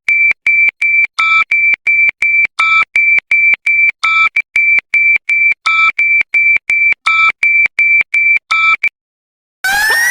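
Synthesized emergency-alert alarm tone: short electronic beeps at one high steady pitch, about four a second, with a lower second tone added to every sixth or so beep. The beeps cut off near the end, and after a short gap a loud siren-like tone begins sweeping upward.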